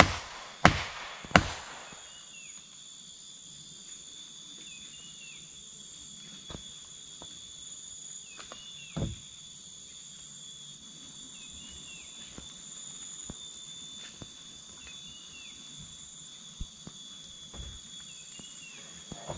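Three sharp knocks on wood about 0.7 s apart in the first second and a half, then a steady high forest insect drone with short chirps repeating every few seconds. A few light wooden knocks and one duller thump about nine seconds in, from the hut's poles as he moves about the frame.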